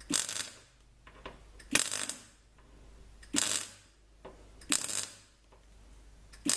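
MIG welder laying short tack welds on car body panel steel: five brief bursts of crackling arc, about one and a half seconds apart.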